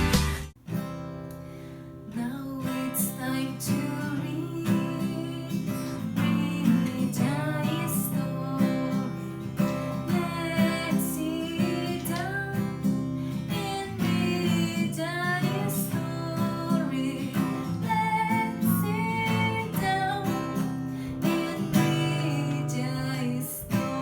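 Music: a strummed acoustic guitar with a voice singing over it, starting after a brief gap right at the beginning.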